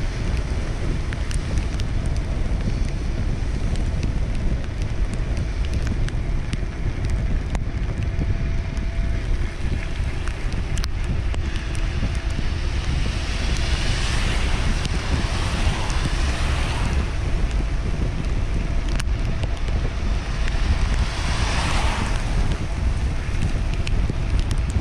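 Wind buffeting the microphone, with cars passing twice on the wet road, their tyres hissing as they go by, the first about halfway through and a shorter one near the end.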